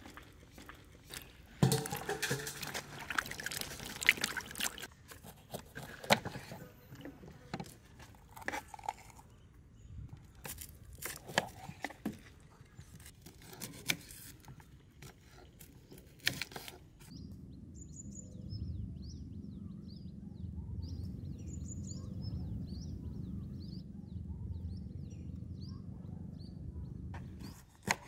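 Kitchen knife slicing bell peppers on a wooden cutting board: irregular crisp cuts and knocks of the blade against the board. About two-thirds of the way through the cutting stops, and a steady low rumble carries on with faint high chirps over it.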